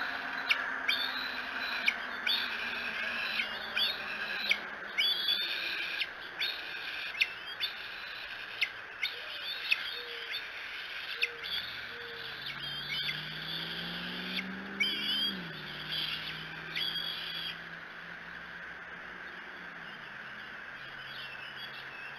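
Juvenile bald eagles giving high-pitched begging calls, repeated about once a second, at an adult that has landed at the nest with a fish. The calls stop near the end. A low hum rises in pitch about halfway through and then holds steady.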